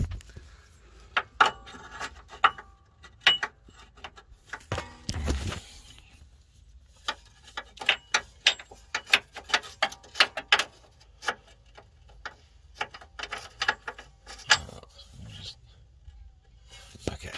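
Steel bolts and small metal parts clinking and clicking as they are handled, an irregular string of sharp clicks, with a couple of dull thumps early on and about five seconds in.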